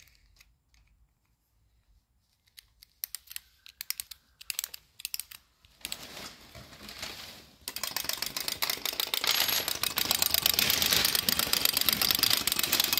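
Clockwork wind-up toy chick, wound with its key in scattered clicks, then about eight seconds in set running on a tabletop: a fast, continuous clatter of ticks from its spring mechanism and its pecking.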